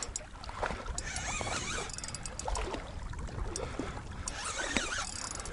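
River water gurgling and lapping, with scattered light clicks.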